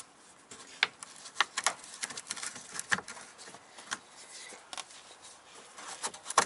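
Irregular light clicks and scrapes of a Phillips screwdriver and fingers working the fuel filter holder's clamp under a VW Mk4 GTI, as the clamp is being loosened.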